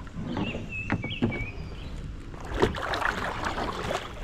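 Kayak paddles dipping and splashing in calm river water, the splashing heaviest in the second half, with a few short high chirps about a second in.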